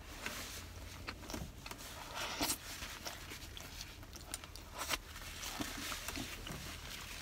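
Close-up chewing and biting of a crispy fried chicken sandwich: scattered small crunches and mouth clicks, with louder crunches about two and a half and five seconds in.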